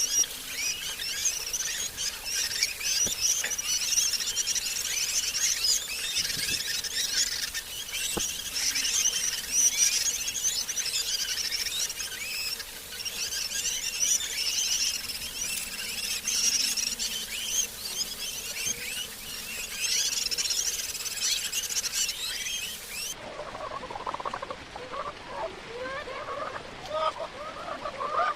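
A dense, continuous chorus of high-pitched chirping from many birds at once. About 23 seconds in it cuts abruptly to the lower, broken clucking of a flock of hens.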